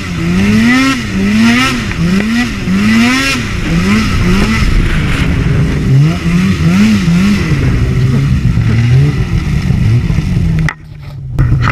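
Snowmobile engine under way on a packed trail, its pitch surging up and dropping back again and again with the throttle for the first several seconds, then settling to a steadier, lower run. It cuts out briefly about a second before the end, then comes back running steadily.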